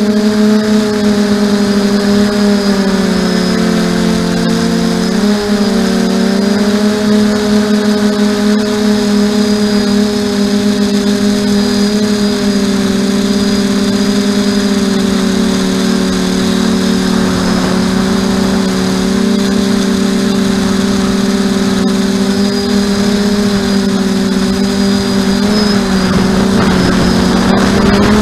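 FPV quadcopter's electric motors and propellers running steadily, heard from its onboard camera: a strong hum of several tones that drift and cross in pitch as the throttle changes, most clearly about four to six seconds in.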